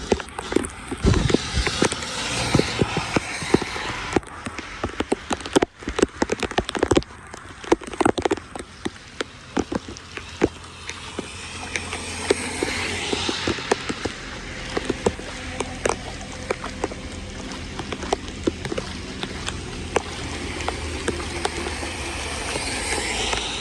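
Floodwater running steadily, with many sharp knocks and clicks over it, densest in the first seven seconds and sparser after.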